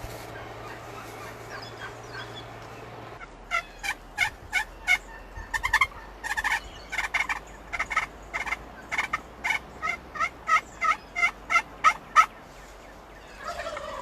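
Merriam's wild turkeys calling at close range. From about three seconds in comes a long run of short, sharp, loud notes, about two to three a second, lasting some nine seconds.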